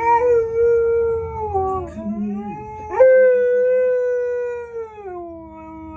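Siberian husky howling: two long howls, the second starting about three seconds in and sliding down in pitch as it fades.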